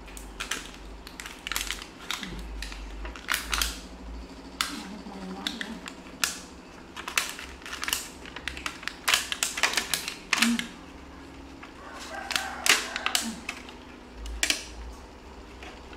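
A thin clear plastic fruit clamshell container crackling and clicking as hands open and handle it. The clicks come in irregular clusters throughout.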